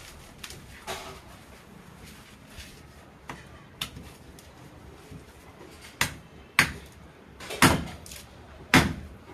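Machete chopping into a coconut's fibrous husk to strip it off: a series of about seven sharp, irregular chops, the heaviest two near the end.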